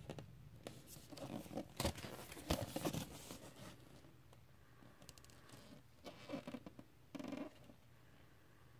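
A large card LP insert rustling and scraping as it is handled and turned over. Several sharp card clicks come in the first three seconds, then softer brushes, with one short scrape near the end.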